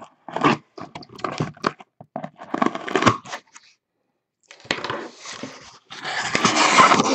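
A cardboard case being opened by hand: irregular crunching and tearing of packing tape and cardboard, a short gap about halfway, then a longer, louder scraping rustle near the end as the boxes inside are pulled out.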